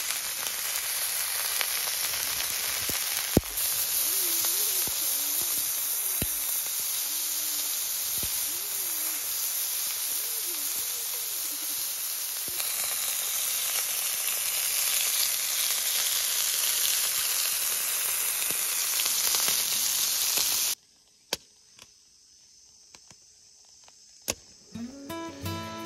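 Beef steaks sizzling on a hot steel griddle plate over a wood fire: a loud, even hiss, with a sharp click a few seconds in. The sizzle cuts off suddenly about 21 seconds in, leaving quiet with a few light clicks.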